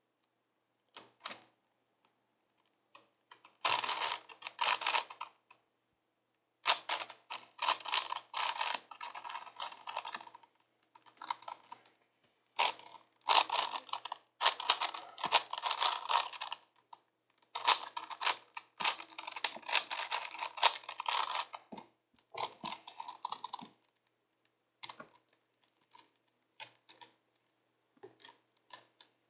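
A 5x5x5 Rubik's Cube being twisted by hand: runs of rapid plastic clicking and rattling as the layers turn, broken by short pauses between runs of moves.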